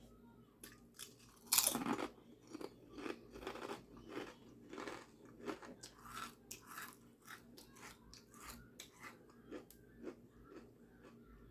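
A bite into a sandwich on toasted, buttered bread, with a loud crunch about a second and a half in, followed by repeated crunchy chewing that thins out towards the end.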